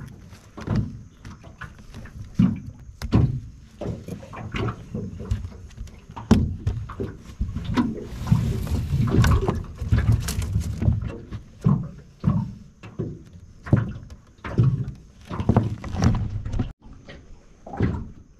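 Handling noises in an aluminium dinghy: irregular knocks, thumps and scrapes as mud crabs and a wire-framed mesh crab pot are moved about on the deck, with a longer stretch of rattling and scraping about eight seconds in.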